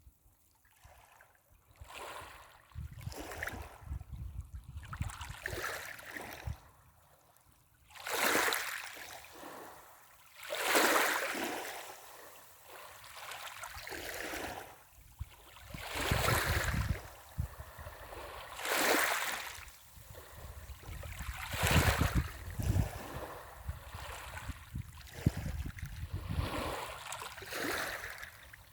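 Small waves washing up a pebble beach and drawing back, the pebbles rattling and hissing in the backwash. The surges swell and fade every few seconds, some much louder than others.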